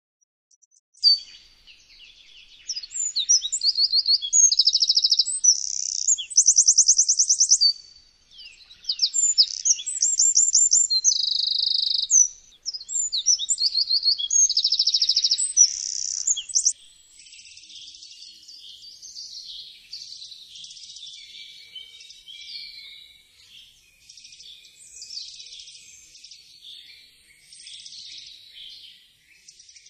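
Eurasian wren (Troglodytes troglodytes) singing: two long, loud bursts of rapid trills and high piercing notes. These are followed by softer, scratchier twittering for the rest of the time.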